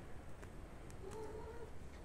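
A cat's short meow, one brief call about a second in, with faint scratchy ticks of small claws on cloth and a slipper.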